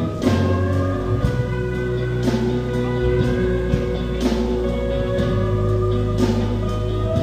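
A live rock band plays a song on guitar, bass and drum kit, with a cymbal crash about every two seconds over held chords and a steady bass line.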